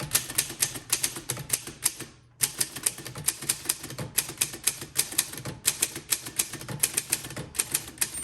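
Typing on a 1954 Voss ST24 manual typewriter: keys and type bars striking in quick succession, about four strokes a second, with a brief pause about two seconds in.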